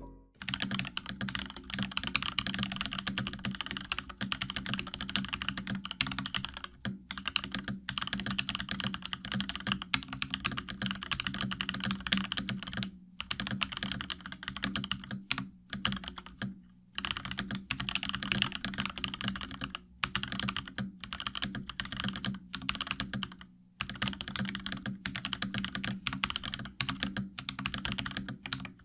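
Fast typing on a custom tactile mechanical keyboard, an Epomaker TH80 Pro: a dense run of keystroke clacks, broken by brief pauses every few seconds.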